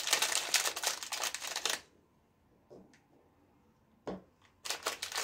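Plastic biscuit wrapper crinkling and rustling, stopping about two seconds in, followed by a few light taps and clicks near the end.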